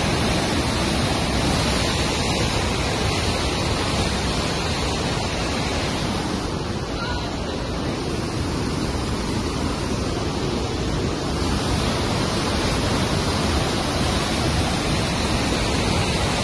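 Steady, loud rushing roar of a river in record flood, churning whitewater rapids, easing a little midway through.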